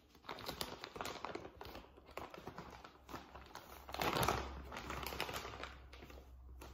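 A plastic bag of sorghum meal crinkling and rustling as it is handled and turned over, with irregular crackles that are loudest about four seconds in.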